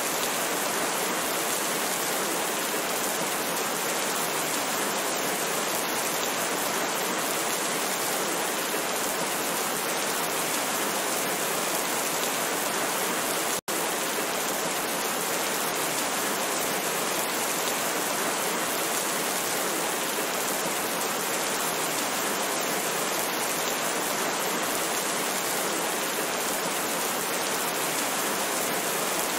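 Steady, heavy rain: a dense, even hiss with no thunder. It cuts out for an instant about halfway through.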